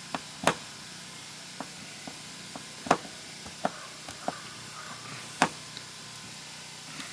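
Sharp, irregular clicks and knocks of a hand tool against metal as a screw is driven to fasten a replacement RV compartment door holder clip, with three louder knocks among lighter clicks.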